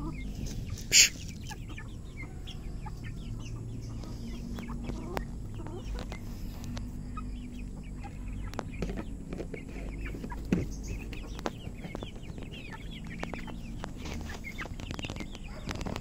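Flock of Rhode Island Red hens clucking while they feed, with many short calls overlapping. A short, sharp noise about a second in is the loudest sound.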